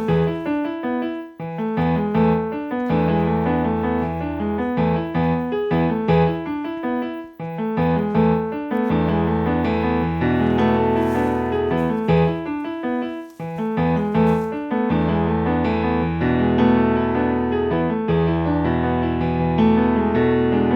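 Background music played on piano or electric keyboard, with a sustained bass and chords; it drops out briefly a few times.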